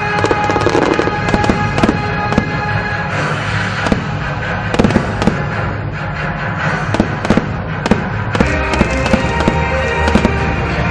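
Aerial fireworks going off: many sharp bangs and crackles in quick, irregular succession, over loud music.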